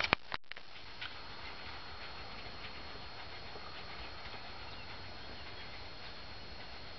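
Faint, steady open-air noise with a distant steam train far off. A few sharp clicks come right at the start, with a brief cut-out just after them, and fainter clicks follow about a second in.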